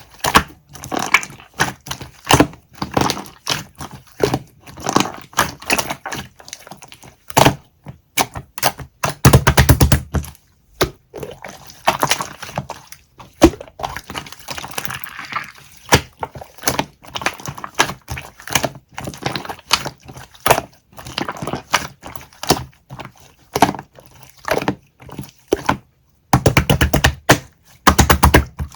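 Dense, irregular crackling and clicking with wet squishing, in runs of rapid clicks now and then, like a soft sticky material being pressed and pulled by hand.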